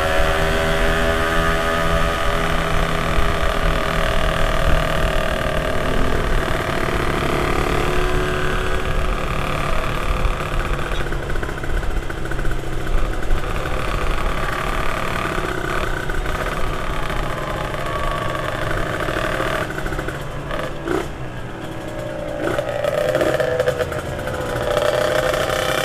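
Motorcycle engine running while riding, its note drifting up and down a little with speed, with a brief drop in loudness about twenty seconds in.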